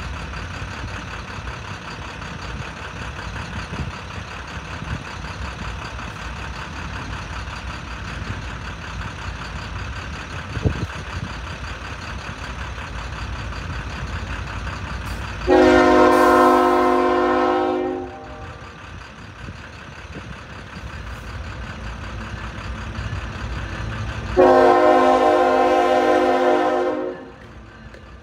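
An approaching CSX diesel locomotive sounds two long blasts of its air horn, each a chord of several steady notes lasting about two and a half seconds. The first comes about halfway through, the second near the end, over a steady low rumble.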